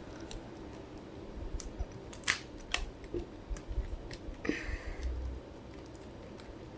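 Plastic pieces of a coreless 3x3 Rubik's cube clicking as the layers are turned by hand: a few sharp, separate clicks, the clearest a little after two seconds and near three seconds, with a short rustle of handling a couple of seconds later.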